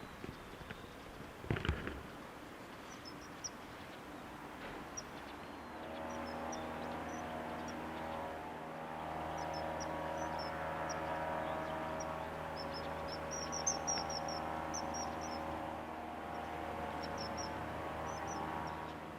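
A motor vehicle's engine running steadily, starting about six seconds in and lasting to the end, with small birds chirping high and briefly throughout. A short sharp knock comes near two seconds in.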